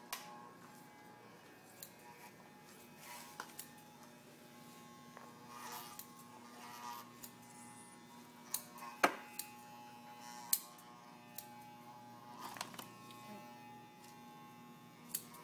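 Corded electric pet clippers buzzing steadily as they shear a dog's coat, with a few sharp clicks scattered through, the loudest about nine seconds in.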